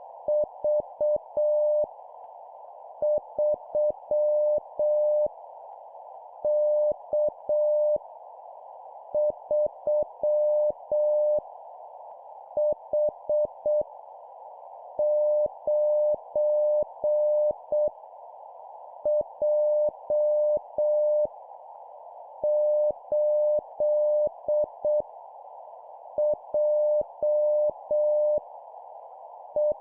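Morse code (CW) practice tone keyed on and off in dots and dashes, sending random letters and numbers at 7 words per minute, with pauses of about a second between characters. A fainter steady hiss runs underneath.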